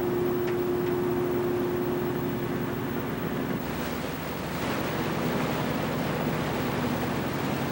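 Fishing boat under way: its engine runs with a steady hum beneath the rush of water churned up in its wake, along with wind noise. One strand of the hum drops out about halfway through, while the lower hum and the water noise carry on.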